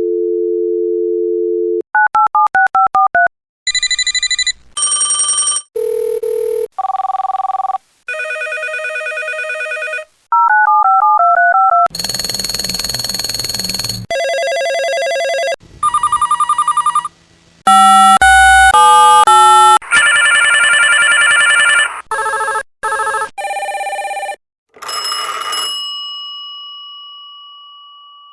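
A run of telephone sounds one after another: a dial tone of two steady low tones, then a warbling electronic ringer trill, then a series of different ring and ring-tone sounds of varying pitch, some buzzy, some trilling. Near the end a single struck tone rings out and slowly fades.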